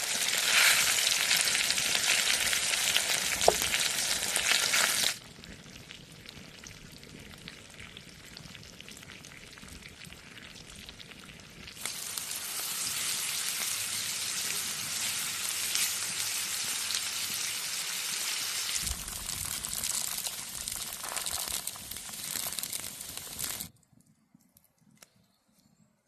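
Food sizzling and frying in a hot pan over an open fire: a dense, steady hiss that drops abruptly to a quieter sizzle about five seconds in, then turns loud again about twelve seconds in. It cuts off suddenly a couple of seconds before the end.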